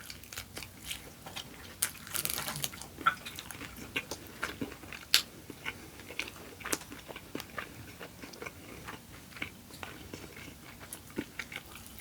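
Close-miked chewing of crispy fried chicken wings: irregular crunches and wet mouth clicks, with a longer crunchy bite about two seconds in.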